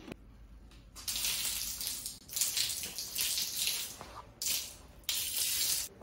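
Wet Swiffer mop pushed back and forth over a vinyl sheet floor with a water-and-cleaner solution. It makes several swishing strokes, each about half a second to a second and a half long, starting about a second in.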